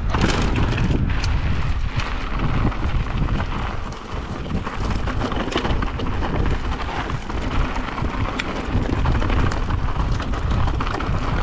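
Mountain bike riding fast down a loose rocky trail: tyres rolling and crunching over rock and gravel, with many sharp rattles and knocks from the bike and a steady low rumble.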